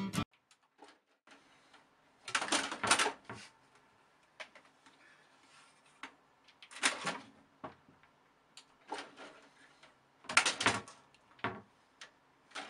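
A cat scrabbling at a cloth curtain and the side of a computer case: fabric rustling, claw scratches and light knocks in several short bursts, with small clicks between them.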